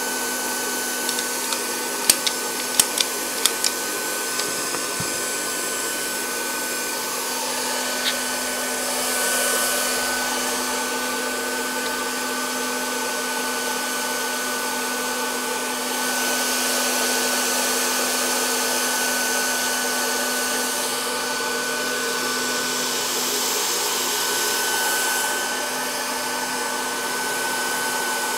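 Techspan Rion hot air plastic-welding tool running steadily, a constant rush of blown air with a thin steady whine and a low hum beneath it, swelling slightly a couple of times. A few sharp clicks sound in the first few seconds as the plastic pipe is handled.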